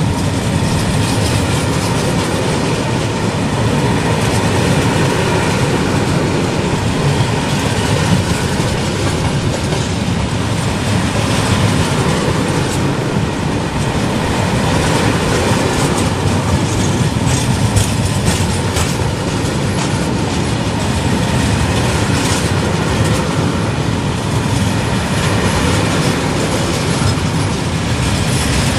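Freight train of empty stake-sided flat wagons rolling past close by: a steady, loud rumble and clatter of steel wheels on the rails, with repeated clicks as the wheels pass over the rail joints.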